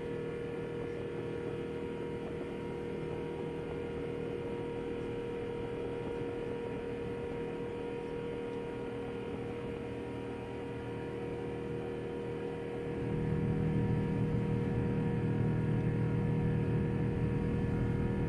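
Steady droning hum of an Airbus A380 in its climb after takeoff, heard as cabin noise, with a few steady tones held over it. A deeper rumble swells and the drone grows louder about two-thirds of the way through.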